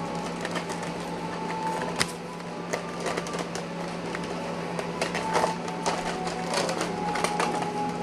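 Scattered small clicks, taps and rustles of a fabric-dressed plastic action figure being handled, over a steady low hum.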